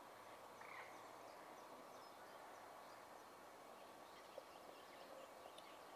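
Near silence: a faint steady hiss of outdoor background with distant small birds chirping, the chirps more frequent in the second half.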